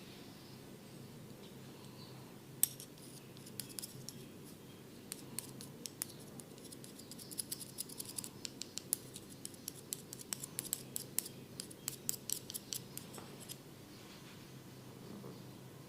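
Quick, crisp clicks and snips in irregular runs from a barber's tool worked close to the ear. They start nearly three seconds in and stop about two seconds before the end.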